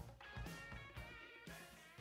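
Background music with guitar over a regular drum beat, fading out.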